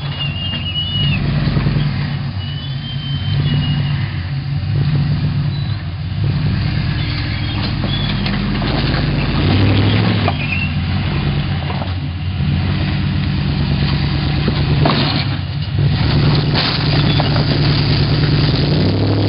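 Rock crawler buggy's engine running at low revs as it crawls over rock, the pitch rising and falling with short bursts of throttle, with a few short knocks part-way through.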